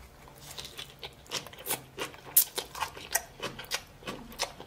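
Close-up crunchy chewing of a mouthful of shredded cabbage slaw, an irregular run of crisp crunches, about three or four a second.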